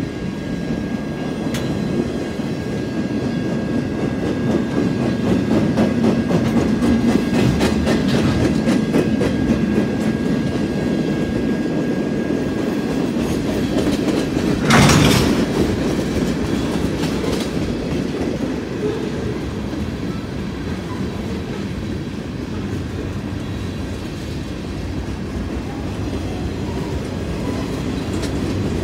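Freight cars of a passing manifest train rolling by, with a steady rumble of steel wheels on the rails and rapid clicking over the rail joints. A faint steady high tone runs through the first dozen seconds, and a short loud burst of noise comes about halfway through.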